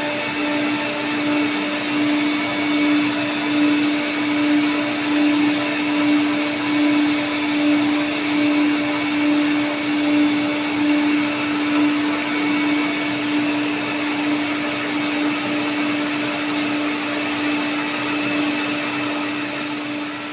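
Deep-hole gun-drilling machine running while boring gun barrels: a steady motor hum with one strong low tone over a broad hiss, swelling and fading slightly about once a second.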